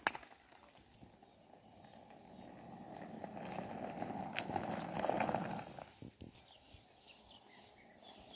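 Skateboard wheels rolling over asphalt: a rumbling that grows louder from about two seconds in and dies away about six seconds in as the board slows. Near the end comes a high chirp, repeated about twice a second.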